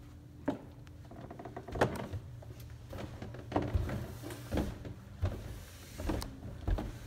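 Footsteps going down carpeted stairs: dull, uneven thumps about once a second.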